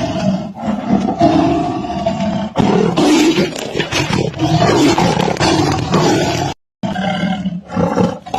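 Big cats roaring, loud and continuous, with abrupt changes between roars and a brief cut to silence about two-thirds of the way through.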